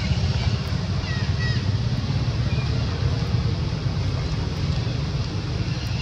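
Wind buffeting the microphone in a steady low rumble, with a few faint short high chirps about a second in and again near the end.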